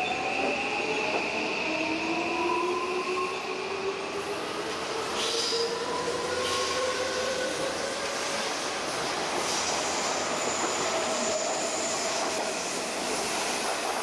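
Odakyu 5000-series electric train pulling out and running past close by, its traction motors whining in several steadily rising tones as it gathers speed, over the rumble and clatter of the wheels on the rails.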